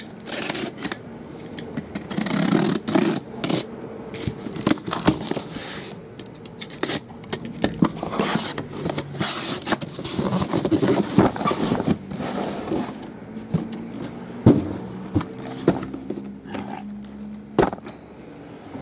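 A box cutter slitting the packing tape on a cardboard case, then cardboard scraping and rustling as shrink-wrapped card boxes are pulled out. A few sharp knocks come in the second half as the boxes are set down on the table.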